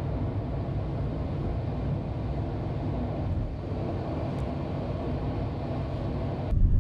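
Steady road and engine noise of a moving van heard from inside its cabin. It cuts abruptly to a louder, deeper rumble near the end.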